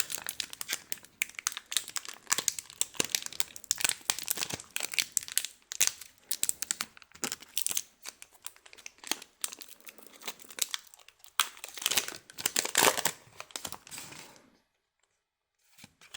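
Foil Pokémon booster pack wrapper crinkling and tearing as it is opened. The crackling stops near the end.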